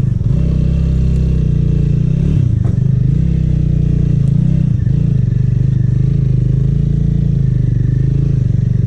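Small motorbike engine running steadily while riding a rough dirt track, its pitch wavering a little between about two and five seconds in.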